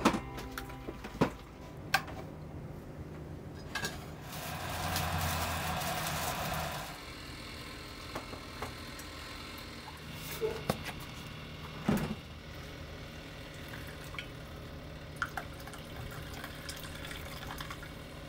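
Kitchen sounds: liquid being poured for about three seconds, with scattered clinks and knocks of ceramic mugs and utensils and a low steady hum behind.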